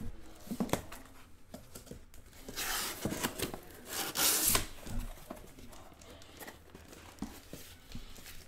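Cardboard shipping box being opened by hand: a few knocks and scrapes, then two loud rasping tears of tape and cardboard about two and a half and four seconds in, followed by quieter handling of the boxes.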